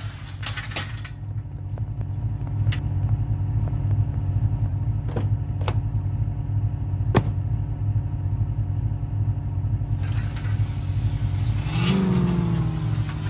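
Car engine running steadily with a low hum and a few sharp clicks. From about ten seconds in it grows noisier, and near the end the engine pitch briefly rises and falls.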